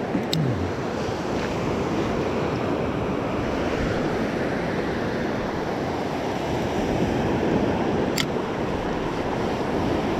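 Ocean surf breaking and washing onto the beach, a steady rushing noise, with wind buffeting the microphone. A couple of brief ticks can be heard over it.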